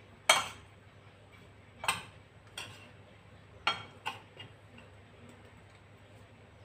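Light clinks and taps on a ceramic plate as slices of elephant yam are pressed and turned in flour: about five sharp, irregular ones in the first four and a half seconds, then quiet handling.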